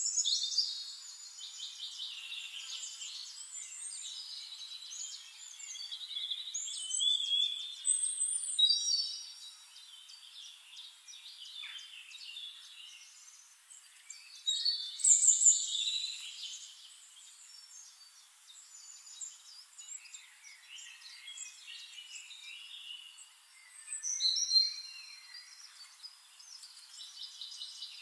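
Birdsong: many birds chirping and trilling at once, overlapping calls with a few louder bursts, all high-pitched with no low sound under it.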